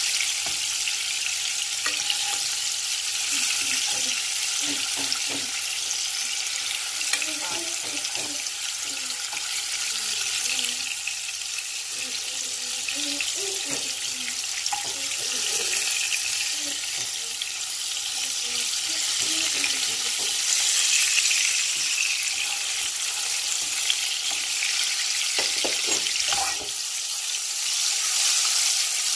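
Fish balls sizzling steadily as they fry in shallow oil in a nonstick pan, with a spoon turning them now and then and a few knocks near the end.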